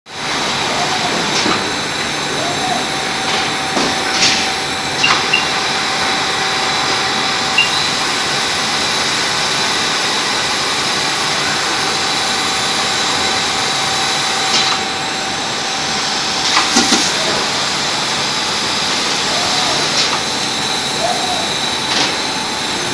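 A fully automatic LED lamp exposure machine running: a steady airy machine hiss with a faint held tone, and now and then a short click or clack from the mechanism.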